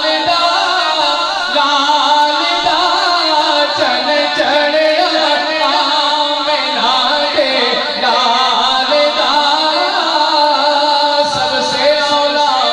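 Male voice singing a Punjabi naat (Islamic devotional praise song) into a microphone, in long, wavering, ornamented melodic lines without a break.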